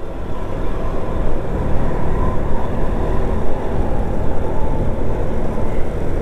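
Motorcycle riding noise in town traffic: the engine runs steadily under a continuous wash of road and traffic noise.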